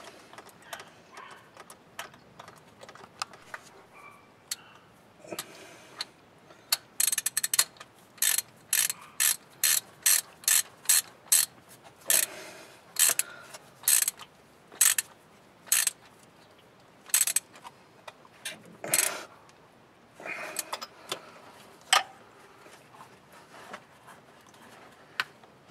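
Hand ratchet wrench being worked on a fastener, its pawl clicking in a run of sharp clicks at about two a second for roughly twelve seconds, with softer metal handling noise before and after.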